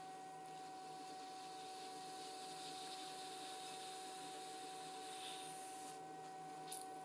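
Electric potter's wheel running with a steady motor whine and hum, under a soft hiss of a wet sponge rubbing on the spinning clay cup that stops about six seconds in. A brief tick sounds near the end.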